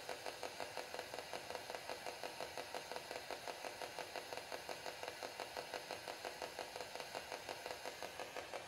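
Spirit box (ghost box) radio sweeping through stations: a faint, fast, even chopping of static, several pulses a second.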